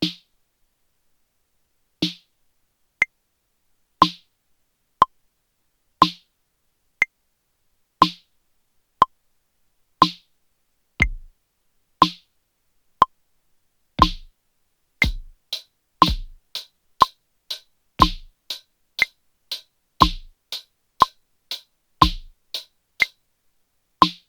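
Sampled drum-machine sounds at a slow, steady tempo of about one beat a second, with a click on each beat and a fuller hit every other beat. About 11 s in, kick-drum hits join, and from about 14 s in, hits fall between the beats as well: the kick and hi-hat coordination drill tapped on a pad controller over the backing track.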